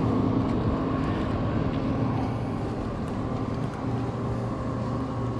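An engine running steadily nearby, a constant low hum with a little wind noise on the microphone.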